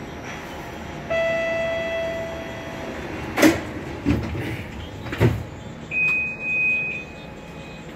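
Door-closing sequence on a TTC Flexity streetcar: a warning tone sounds for about two seconds, then the sliding doors shut with three sharp clunks, followed by a high steady beep.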